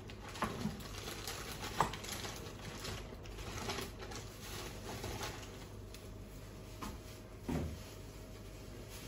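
Pot of water and vegetables simmering on the stove: soft bubbling with small, irregular pops, a sharper click about two seconds in and a low knock near the end.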